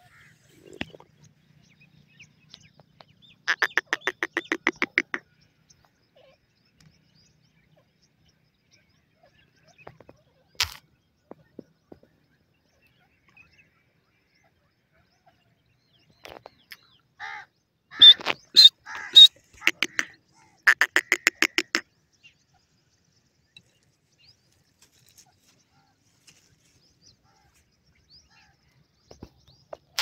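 Male grey francolin calling: a quick run of rapidly repeated notes a few seconds in, then after a long quiet spell a burst of loud high notes followed straight away by another quick run of repeated notes.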